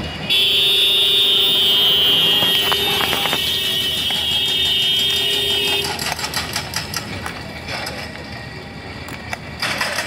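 A vehicle horn held in one steady blast for about five and a half seconds, starting just after the beginning and cutting off suddenly. Street traffic noise follows, with a few sharp knocks.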